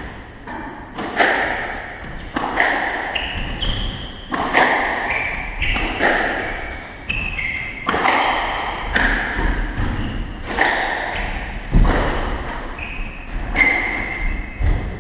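Squash rally: the ball cracking off racquets and the walls about every second and a half, each hit echoing in the court, with short high squeaks of court shoes on the wooden floor between shots.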